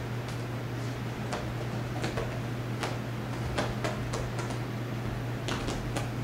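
A cat's paws and claws tapping and scrabbling as it pounces at a laser dot, giving irregular light ticks and taps that come quicker in the second half. A steady low hum runs underneath.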